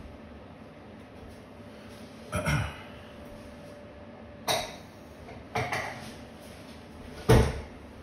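Four short knocks and clatters against a quiet room background, the loudest about seven seconds in.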